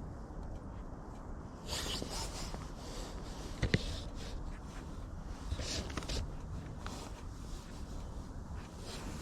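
Scraping and rustling handling noises over a steady low rumble, with a sharp click just under four seconds in.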